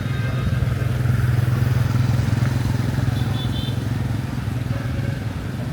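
Motorbike engine running close by. It grows louder about a second in and eases off toward the end.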